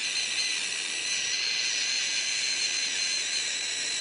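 Juvenile leopard gecko hissing with its mouth wide open: one long, steady, high breathy hiss with a faint whistle in it. It is the defensive scream young leopard geckos give when threatened.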